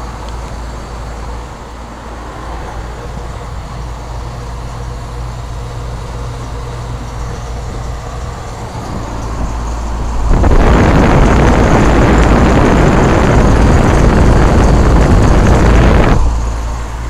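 Payne heat pump outdoor unit running in cooling mode: a steady low compressor hum with the fan. About ten seconds in, a much louder rushing noise sets in and lasts about six seconds, then drops back to the hum.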